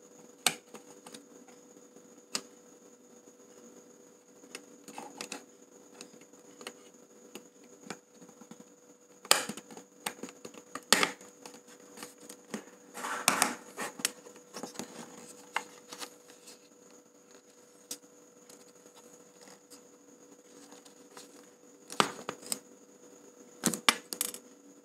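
Scattered clicks, taps and light scrapes of hard plastic as the flip-out LCD screen of a Canon EOS 650D is handled and fitted against the camera body and its hinge. There is a longer rustling scrape about 13 seconds in and a cluster of sharper clicks near the end, over a faint steady hum.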